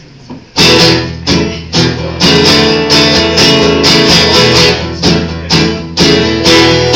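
Acoustic guitar strummed in a steady rhythm, about two strums a second, starting about half a second in: the instrumental intro of a live song.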